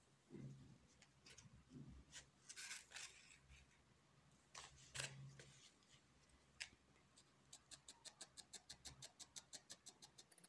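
Faint handling of wool and foam with scattered soft clicks, then from about seven seconds in a fast, even run of faint clicks, about four or five a second: a felting needle stabbing repeatedly through wool into the foam pad.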